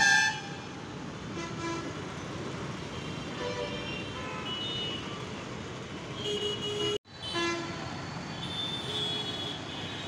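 City street traffic: a steady hum of engines and tyres with vehicle horns tooting now and then, one loud horn blast right at the start. The sound drops out for an instant about seven seconds in.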